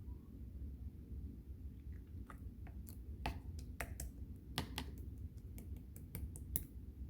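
Clear slime being pressed and worked by hand, giving a run of sharp little clicking pops from trapped air, about a dozen of them from about two seconds in until shortly before the end, over a low steady hum.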